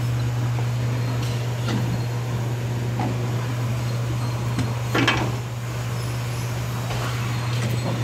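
Electric forklift running with a steady low hum, with a few light knocks and rattles, the loudest about five seconds in.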